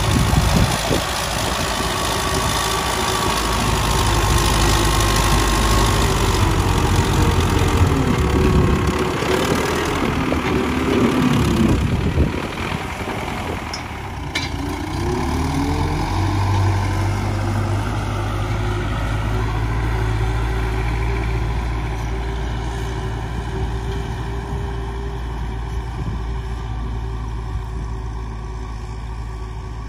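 Farm tractor's diesel engine running under load, louder for the first twelve seconds or so, then easing to a lower, steadier drone.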